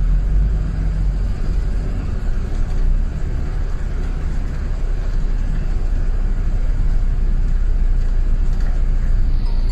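Steady low rumble of a London double-decker bus in motion, heard from inside on the upper deck: engine and road noise with no sharp events.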